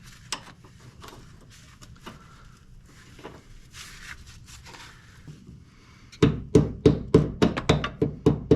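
Light clicks and clatter of hand tools being handled, then, about six seconds in, a fast, even run of loud knocks, about four a second, like metal tools striking or tapping on the Jeep's steering-line fitting.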